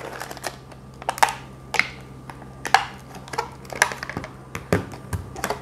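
Clear plastic packaging tray being handled as a power bank is taken out of it: irregular sharp clicks and crackles of stiff plastic, about half a dozen over a few seconds.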